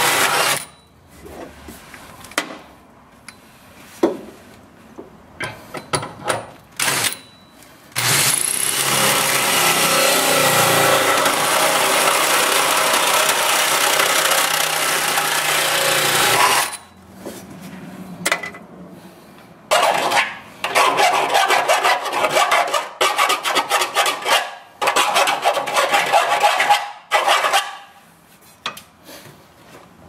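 Power drill driving a hole saw through the sheet-steel firewall of a BMW E36 body, the teeth rasping against the metal. It cuts in short bursts, with one continuous cut of about eight seconds in the middle.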